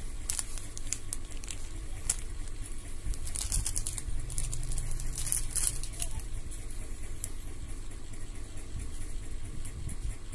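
Thin plastic parts bag from a Tamiya kit crinkling as it is handled, a run of small sharp crackles that thins out in the second half, over a steady low hum.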